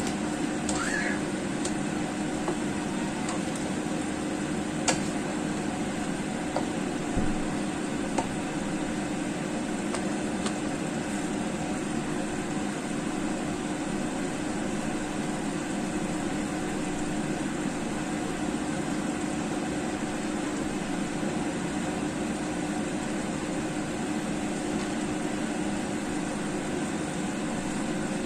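Steady hum of a kitchen fan running under the cooking, with a few light taps of a utensil on the pan in the first several seconds.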